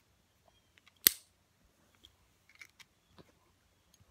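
One sharp click about a second in, then a few faint ticks, from small Glock 17 slide parts being handled as a part is pushed back onto the slide over the striker, which is held down with a screwdriver.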